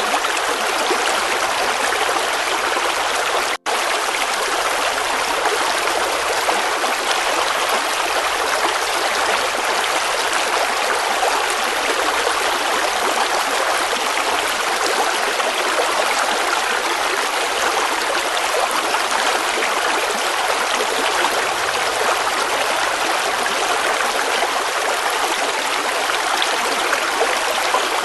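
River water flowing in a steady, even rush. The sound cuts out for an instant about three and a half seconds in.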